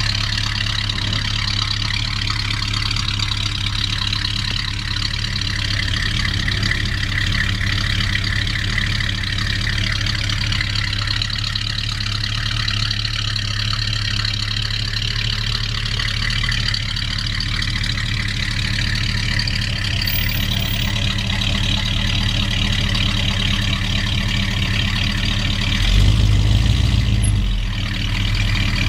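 A 1957 Chevrolet's engine idling steadily as the car backs down the car-carrier ramps. About 26 seconds in, it briefly picks up with a little throttle, then settles back to idle.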